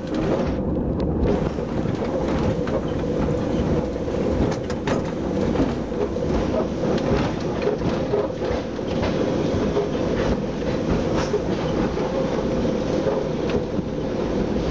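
Sóller tram running along street track: a steady rumble and drone with irregular clicks and knocks from the wheels on the rails.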